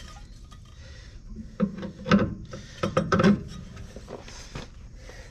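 A cluster of metal clunks and scrapes in the middle as a new shock absorber is worked onto its lower mounting stud on a 1974 Mack truck's front suspension.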